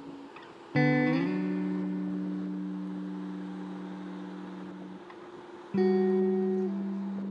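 Background music: a chord struck about a second in and left to ring out slowly, then a second chord about six seconds in.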